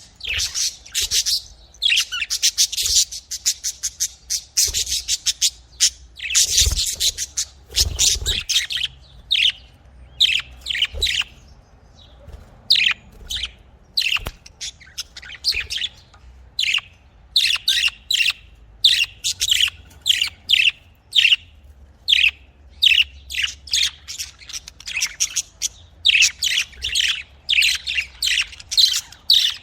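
Pet budgerigars chirping and chattering in rapid runs of short, high notes, busiest in the first third and again toward the end.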